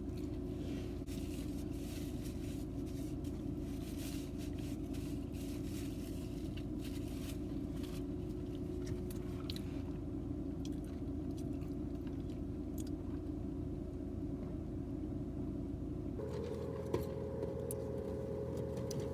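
Chewing and biting into a chicken sandwich, with soft mouth clicks and a sip through a straw, over a steady low hum in a car cabin. A second, higher tone joins the hum near the end.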